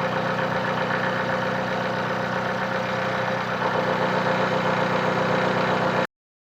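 Bridgeport milling machine running steadily with an even mechanical hum, cutting off abruptly about six seconds in.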